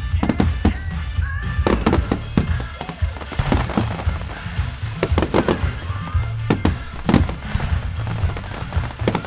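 Fireworks bursting with repeated sharp bangs and crackles, irregularly spaced, over loud music.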